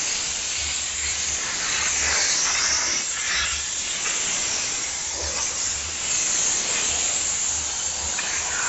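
High-pressure steam jet from a diesel-heated steam cleaner's gun hissing steadily, delivering a very large volume of steam.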